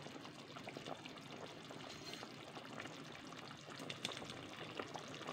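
Pot of chicken tinola soup simmering on the stove: faint, steady bubbling, with a few soft clicks about four seconds in.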